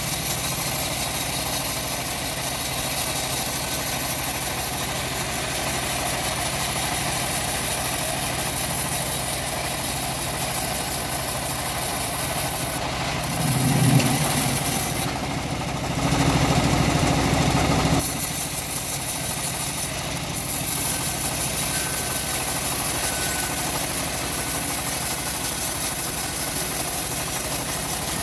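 Homemade engine-driven bandsaw mill running steadily as it saws a teak log, briefly louder around the middle.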